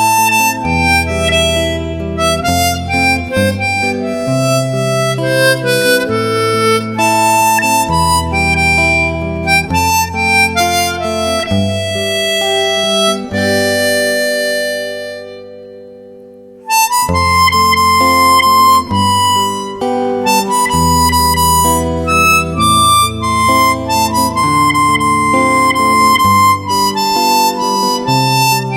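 Background music in an 8-bit chiptune style: a buzzy, reed-like melody over a stepping bass line. It fades out about halfway through and restarts abruptly a second later.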